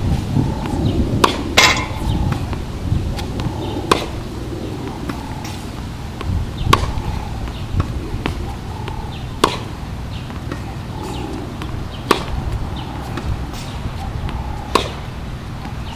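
Tennis ball being struck by a racket in a hard-court rally: single sharp pops about every two to three seconds, the loudest about a second and a half in.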